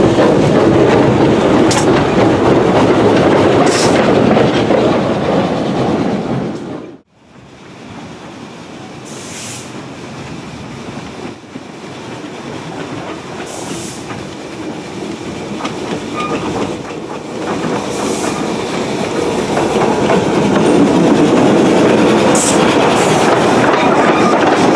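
Porter steam locomotive No. 58 running on narrow-gauge track, loud and close. It cuts off suddenly about seven seconds in, then the locomotive is heard again from a distance, growing steadily louder until it passes close by with its cars near the end.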